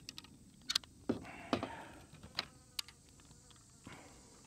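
9mm cartridges being pressed one at a time into a Stribog SP9A3 double-stack magazine: a series of irregular faint clicks with creaking spring sounds. The rounds bind inside the magazine as they stack near 20 rounds, so each one takes considerable force to seat.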